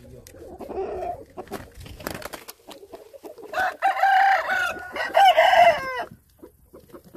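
Chickens calling: soft low clucks at first, then about three and a half seconds in one loud, long crow-like call in two parts that ends in a falling note.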